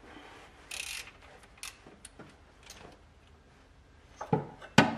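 Hand wrenches working on the camshaft sprocket nut of a BMW M20 engine while the crankshaft is held with a second wrench, as the nut is loosened. There is a brief hiss about a second in and a few light metallic clicks, then two loud knocks near the end.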